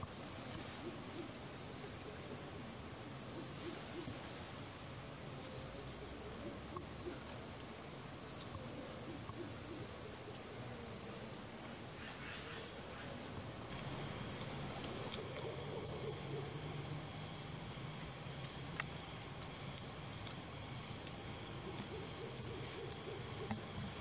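Steady high-pitched drone of an insect chorus in forest, with a short high pip repeating about once a second and two faint clicks a little before three-quarters of the way through.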